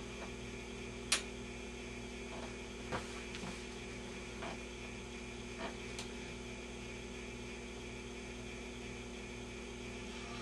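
Steady mains hum from the Admiral 16R11 tube television, powered through a variac, as it warms up. A sharp click comes about a second in, and a few fainter ticks follow.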